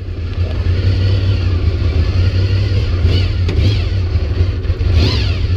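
Honda VFR motorcycle's V4 engine running loudly as the bike pulls away, a steady low drone with a few brief rising-and-falling whines about three to five seconds in.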